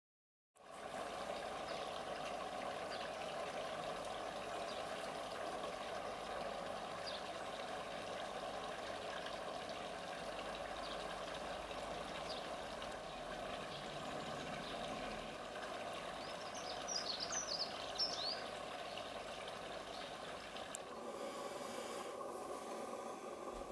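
Steady outdoor background hiss with scattered short, high bird chirps; about seventeen seconds in, a quick burst of high chirping calls stands out for a couple of seconds.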